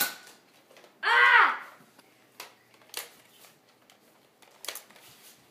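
A child's brief high-pitched shout about a second in, the loudest sound, among a few sharp clicks from Nerf foam-dart blasters being handled and fired.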